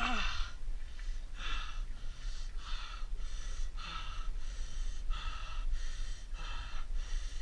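A man breathing hard in short, quick gasps, about two a second, after a short falling groan at the start: breathing through the pain of a fishhook stuck in his own leg.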